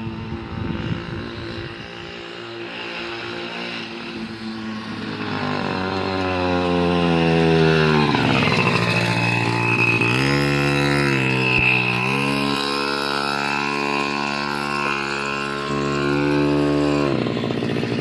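Mini motorcycle's small engine running, getting louder as it comes closer, revving up and easing off: its pitch climbs, drops about halfway through, climbs again and holds, then falls near the end.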